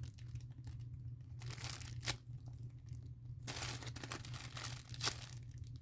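Crinkling and rustling as a foam squishy toy, a cat-loaf bread squishy, is handled and squeezed, in several patches with a few sharp clicks between them.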